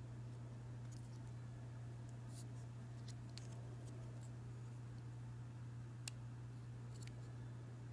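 Faint handling noise from a small plastic mini quadcopter turned over in the hands: a few light clicks of its plastic frame, the sharpest about six seconds in, over a steady low electrical hum.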